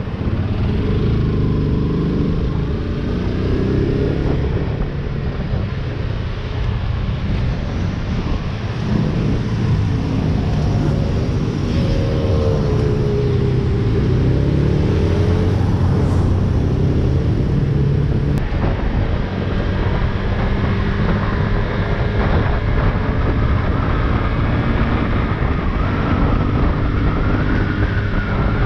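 AKT CR4 162's single-cylinder engine running as the motorcycle is ridden, its pitch rising and falling with the throttle, with wind rushing over the microphone.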